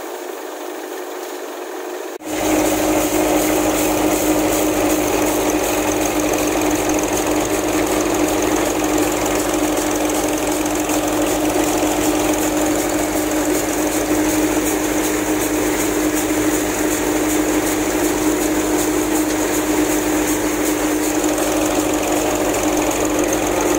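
New Vishvakarma (NVT) thresher running at a steady speed, its belts, pulleys and drum giving a loud, even mechanical hum and rattle with a steady tone throughout. The sound gets louder and fuller about two seconds in.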